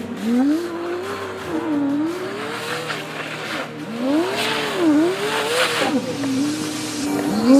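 Jeep Cherokee XJ engine revving up and down as the Jeep spins donuts on loose gravel, with spinning tyres hissing through the gravel twice. The audio is sped up, which raises the pitch.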